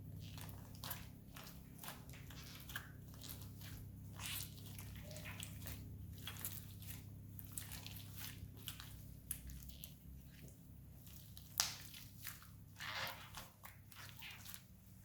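Slime mixed with foam beads being squeezed and kneaded by hand, giving irregular crackles and squishy pops.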